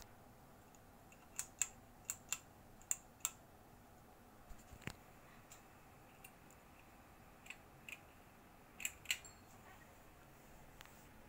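Faint, sharp clicks and taps of small hard parts being handled, coming irregularly and often in quick pairs.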